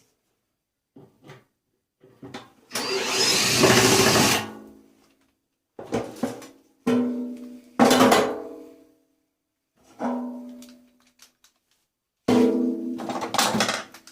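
Sheet-steel parts of a stripped tumble dryer being handled and knocked together, clanging and ringing on after each hit. There is a longer scraping rattle about three seconds in.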